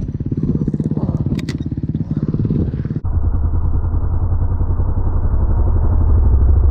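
Dirt bike engine running with a rapid, even putter and a few sharp knocks of clatter. About three seconds in, the sound cuts abruptly to a louder, duller rumble of the bike being ridden along the track.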